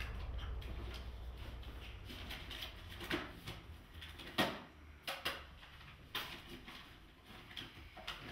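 Quiet room with a faint low hum and a handful of irregular small clicks and knocks from someone handling things at a desk, the strongest about four seconds in.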